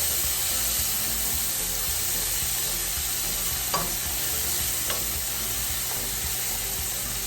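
Halved grape tomatoes and green onion sizzling steadily in butter and olive oil in a pan as they are stirred, with two light clicks about midway.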